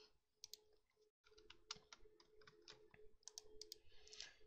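Faint computer keyboard typing: scattered single key clicks at an irregular pace, over a faint steady hum.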